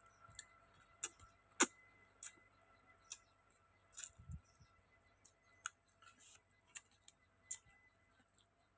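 Someone eating: irregular sharp lip-smacking clicks while chewing, about ten of them, the loudest about a second and a half in.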